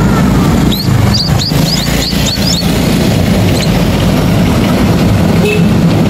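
Steady low rumble of road traffic, with a quick run of about ten thin, rising squeaky calls in the first half from munia nestlings in their grass nest.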